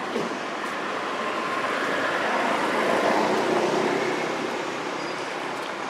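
A road vehicle passing, its noise swelling to a peak about three seconds in and then fading.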